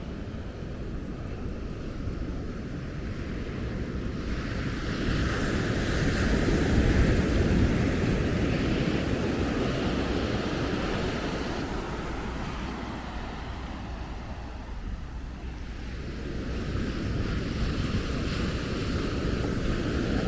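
Ocean surf breaking and washing up a sandy beach, swelling about five seconds in, easing off, then building again near the end, with wind rumbling on the microphone.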